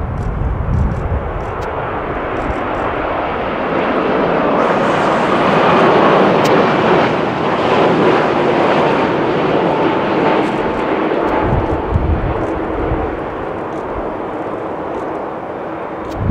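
Boeing 787-9 jet engines at approach power as the airliner passes low on final approach to land, the rushing engine noise swelling to its loudest about six seconds in and then easing as it moves off toward touchdown. A thin steady whine sits in the noise through the middle of the pass.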